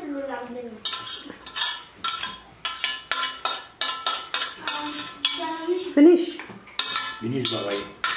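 Fingers scraping and knocking food around a metal eating plate. There are about two strokes a second, and the plate rings briefly with each one.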